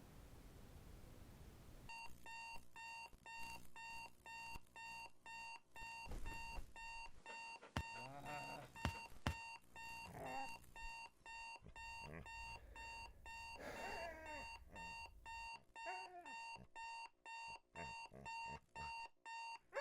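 Electronic alarm clock beeping in a fast, even, repeating pattern, starting about two seconds in. A dog whines over it several times.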